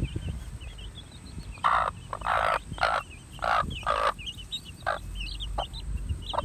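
Mother hen clucking, a run of about six louder clucks in the middle, over continual high peeping of her young chicks.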